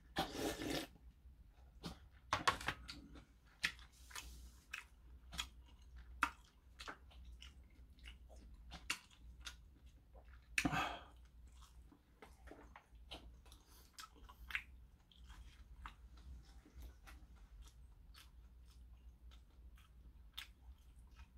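A person eating kimchi-jjigae with ramen noodles: slurping the broth straight from the bowl at the start, then chewing with many small wet mouth clicks, and slurping again a couple of times.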